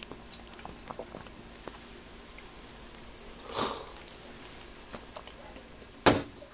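Quiet eating sounds, small mouth clicks and a short breathy sip about halfway through, then a ceramic soup bowl set down on a stainless steel counter with one sharp knock near the end.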